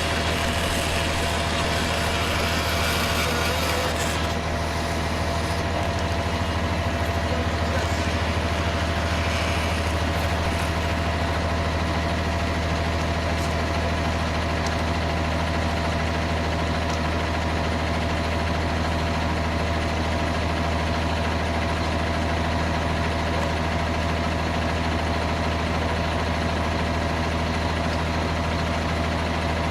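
Steady low hum of an engine idling, unchanging throughout, with a constant mid-pitched tone running over it.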